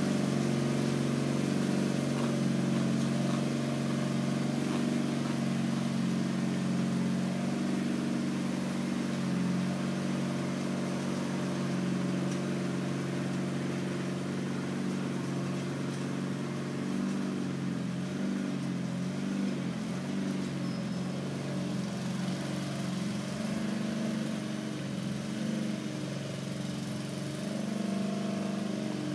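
MTD 995 garden tractor's engine running steadily under load as it pulls a box grader over the drive, growing slightly fainter as the tractor moves away.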